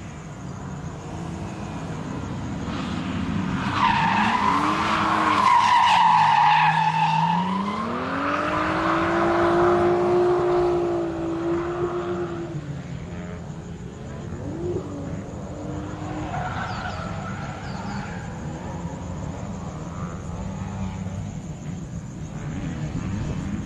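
Drift car sliding through a corner: the engine revs up and down hard while the tyres squeal, loudest in the middle. The revs then drop away, with a brief blip of throttle a little later.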